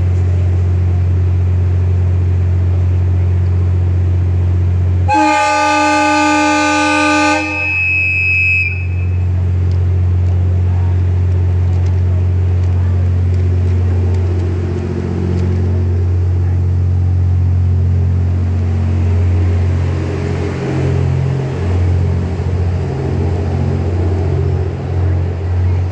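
The horn of the JR West 87 series Twilight Express Mizukaze sounds once, very loud: a multi-tone blast of about two and a half seconds, starting about five seconds in and dying away in echo. Beneath it runs the train's steady low hum, and in the second half a low rumble comes and goes as the train pulls out past the platform.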